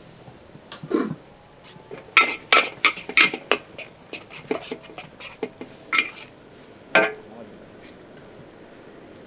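Metal utensils clanking against cookware: about a dozen sharp clanks, several with a short metallic ring, bunched in the first two-thirds, the last and one of the loudest about two-thirds of the way through.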